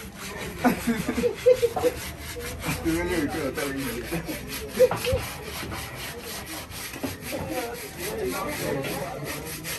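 Knife blade scraping the charred, fire-roasted hide of a cow's head in rhythmic strokes, about four a second, cleaning off the burnt surface, with a few louder knocks as the head is handled.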